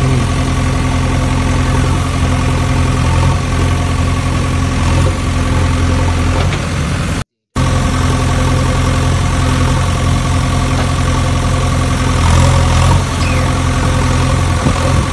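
A steady engine idling sound, unchanging in pitch. It drops out completely for a moment a little over seven seconds in, then carries on as before.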